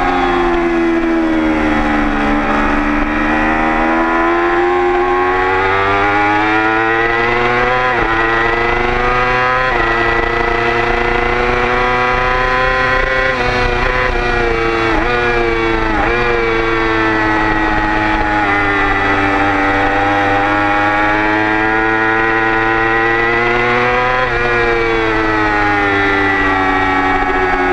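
Motorcycle engine ridden hard on track, heard from on board: the note climbs and falls with the throttle, broken by sudden steps at gear changes, several in quick succession about halfway. Wind rush runs underneath.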